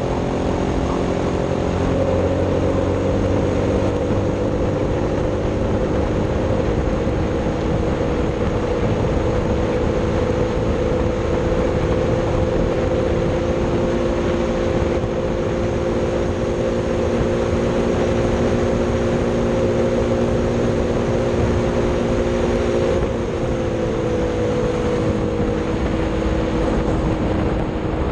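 Racing kart engine at high revs under full throttle, pitch climbing in the first two seconds then holding steady, with a slight drop about 23 seconds in. Wind and road rush run underneath.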